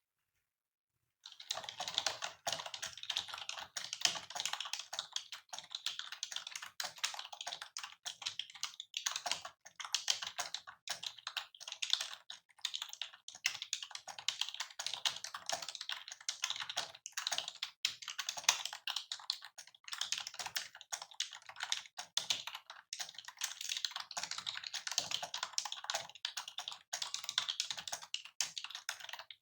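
Fast touch-typing on a mechanical keyboard at about 102 words per minute: a rapid, dense stream of key clicks that starts about a second in and keeps going without a break.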